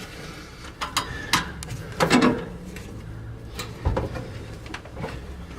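Scattered small metallic clicks and clinks of nuts, bolts and hand tools as a Model A Ford transmission's mounting nuts are threaded on and fastened.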